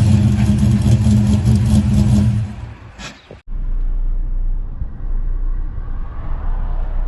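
The 5.7-litre LS1 V8 running steadily and loudly, then fading away about two and a half seconds in. After a short break, a steady low rumble.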